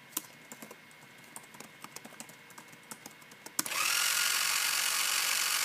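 Keyboard keys clicking as a command is typed, then a few seconds in an RC car's drive motor starts suddenly and runs with a steady whine, driving the car backwards.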